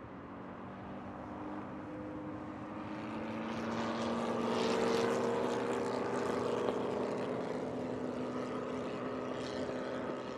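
Ford GT and Ford GT40 race car engines running on track, a droning engine note that grows louder over the first few seconds and stays loud through the rest.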